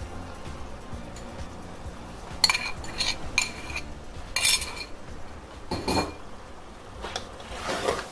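Metal spoon clinking and scraping against cookware while sauce is worked into a pan of chow mein noodles. There are several short ringing clinks in the middle, over a low steady hum.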